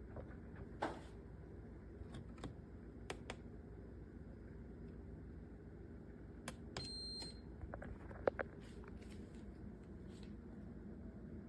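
Faint scattered clicks and light taps, with one short electronic beep about seven seconds in.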